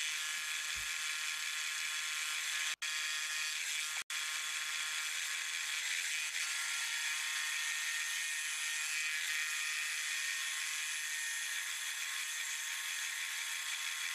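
Milling machine running an end mill through the side of a steel box-section tube: a steady high whine of spindle and cutter. It drops out for an instant twice, a few seconds in.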